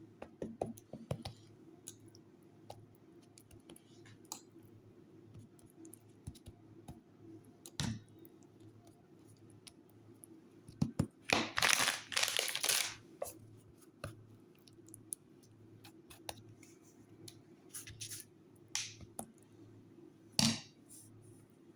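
Thin filo pastry sheets being handled and coated with filling: scattered light clicks and scrapes, and a louder crinkling rustle lasting about a second and a half midway through.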